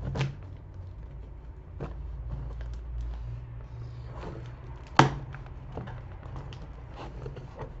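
Packing tape and cardboard scratching and tearing as a screwdriver is forced along the taped seam of a cardboard box, in irregular scrapes and clicks. One sharp snap about five seconds in is the loudest sound.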